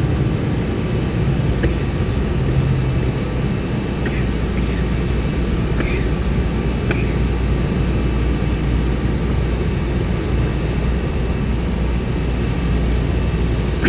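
Bus running on the road, heard from inside: a steady engine and road rumble with a handful of sharp rattles and clicks in the first half.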